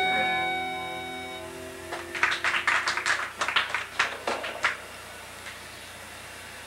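A rock band's final held chord rings out and fades in the first second or so. It is followed by a short, scattered burst of clapping lasting two to three seconds, then a steady room hum.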